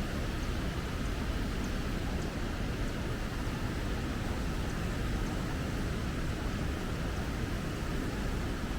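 Steady rushing of the Tomebamba River, a constant, even wash of flowing water.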